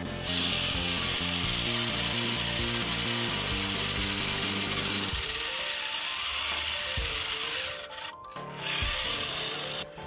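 The small electric gear motor of a remote-control model tractor whines steadily as it drives through loose sand, over background music. The sound drops out briefly about eight seconds in.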